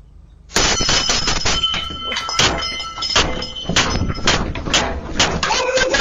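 A door being struck hard and repeatedly: a sudden run of loud bangs and crashes, about two blows a second, starting half a second in, with a ringing rattle over them.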